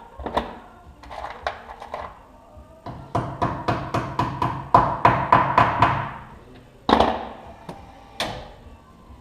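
A hammer tapping clip-on balancing weights onto a steel wheel rim: a few single knocks, then a quick run of about ten ringing metallic strikes, and two more knocks near the end.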